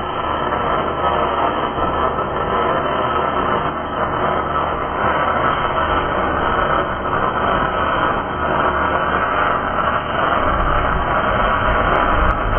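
Wire-feed (MIG) welding arc crackling and sizzling steadily as a bead is run along a steel column, with a low rumble joining near the end.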